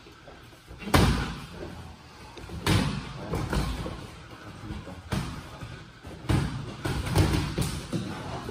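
Boxing gloves landing punches in sparring: a string of irregular thuds, about nine in all, some in quick two- and three-punch combinations.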